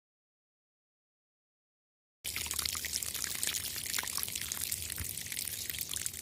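Dead silence for about two seconds, then running water starts abruptly: a steady trickle and splash, full of small spattering drops.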